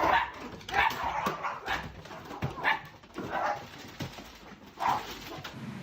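A dog giving a string of short calls, about one every second, with a pause before the last one near the end.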